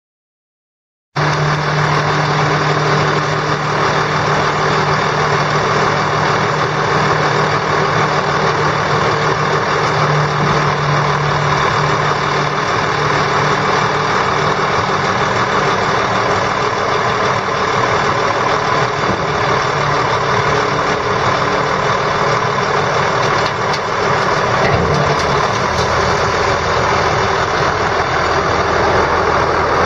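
Cummins 8.3 L straight-six diesel of a dump truck running steadily, driving the hydraulic hoist as the dump bed is raised. About 25 seconds in, its low note shifts.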